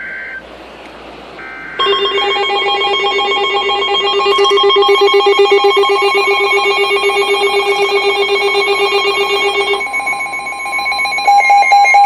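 NOAA Weather Radio emergency alert coming in. It opens with short bursts of digital header data, then from about two seconds in a loud, rapidly pulsing, ringing alarm sounds over a steady warning tone. Near the end it changes to a quick beeping. It signals that a new warning, here a flash flood warning, is about to be read.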